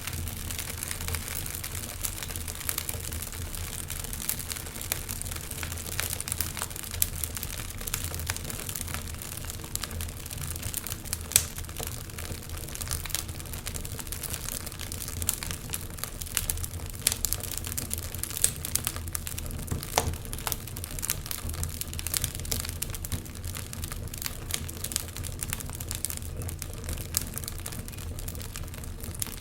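Wood fire crackling, with dense irregular pops and snaps over a steady low hum; one sharper pop about eleven seconds in.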